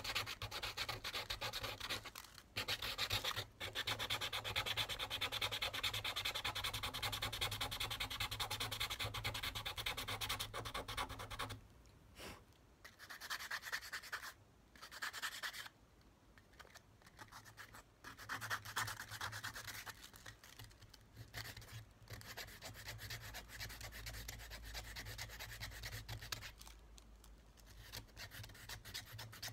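Hand sanding a driftwood stick with a folded sheet of sandpaper: quick back-and-forth rubbing strokes, loud and continuous for the first eleven seconds or so. After that it breaks into a few short bouts with quiet between, then carries on more softly through the second half.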